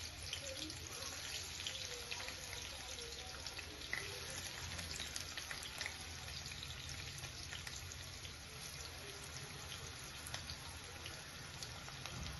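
Chopped onion frying in hot oil in a kadhai for a tempering: a faint, steady sizzle with many small crackles.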